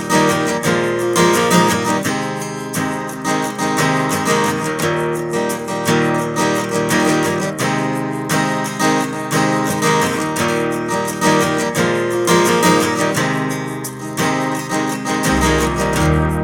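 Background music led by strummed acoustic guitar in a steady rhythm, with a low bass coming in near the end.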